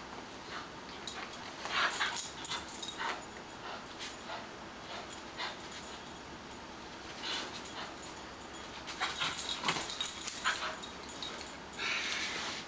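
Terrier-mix dog making short vocal sounds during play, in two busy clusters: one starting about a second in, and another around nine seconds in.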